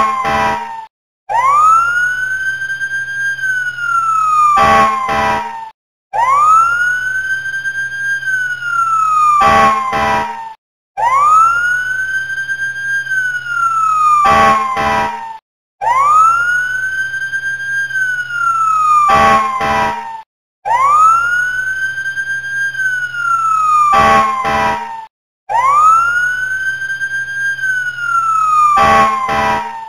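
Looped emergency-vehicle siren sound effect: a wail that rises quickly, holds and then slides down, followed by two short blasts. The cycle repeats about every five seconds with a brief break between loops.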